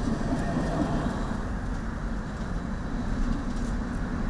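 Light-rail tram running past close by, a steady rumbling noise with no distinct clicks or horn.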